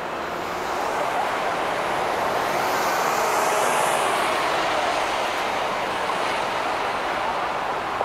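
City road traffic with a truck passing close by. Its engine and tyre noise swells from about a second in, peaks midway and eases off slightly.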